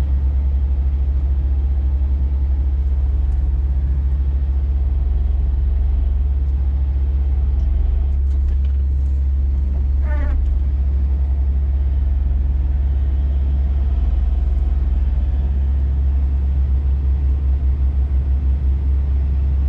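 Scania truck's diesel engine running with a steady low drone, heard from inside the cab as the truck pulls up a snowy road. A regular throb creeps into the sound near the end.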